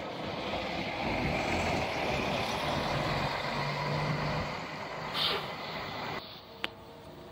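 Mercedes-Benz Citaro city bus passing close and pulling away, its diesel engine running with a steady low drone. There is a short hiss of air about five seconds in. The sound falls away sharply about six seconds in.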